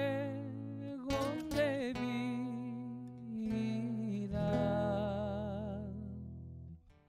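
A man sings with an acoustic guitar, drawing out the song's last line on a long wavering note over strummed chords. The voice and the guitar fade together and stop just before the end, closing the song.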